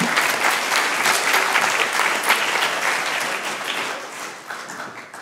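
Audience applauding, the clapping dying down near the end.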